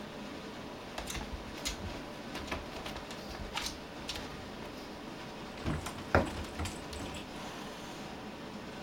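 A cat playing on top of a cat tower: scattered light scratches and taps of its claws and paws, with one louder thump about six seconds in.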